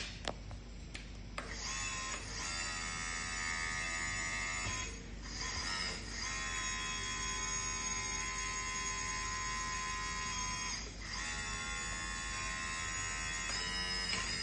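Scale-model hydraulic excavator's electric pump and motor whining steadily in long stretches of a few seconds each, with brief drops between them as the controls are worked. There are a few sharp clicks in the first second or so.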